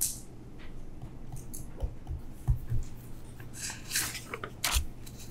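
Faint taps and short scratches of a stylus writing on a tablet screen, irregular and scattered, over a steady low electrical hum.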